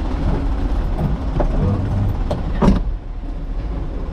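Truck engine running steadily in the cab, with a few light knocks and one loud thump about two and a half seconds in as the cab door slams shut.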